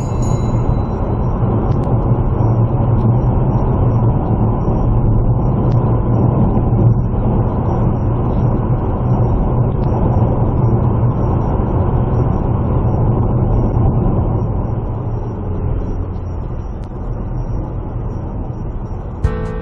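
Road vehicle on the move: steady engine and tyre noise with a low drone, easing slightly near the end.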